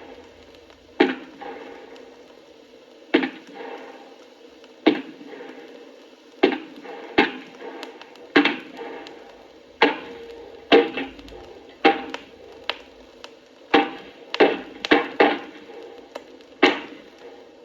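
A series of about fifteen sharp cracks or impacts, each with a short echoing tail, coming at irregular intervals of roughly one a second and crowding closer together near the end.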